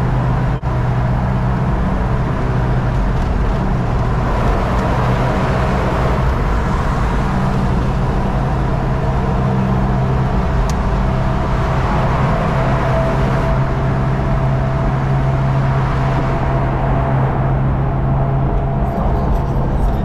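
Hummer H1 driving at freeway speed with the top down: a steady low engine drone under heavy, continuous wind and tyre noise.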